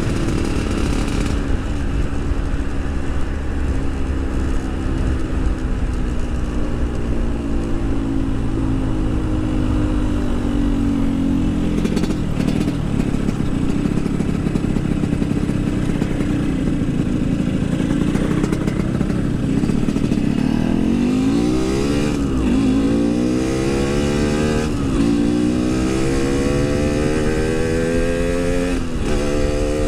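Yamaha RX-King 135cc two-stroke single-cylinder motorcycle engine under way. The revs sag slowly through the first half, then climb and drop back three times in the last ten seconds as it accelerates through the gears.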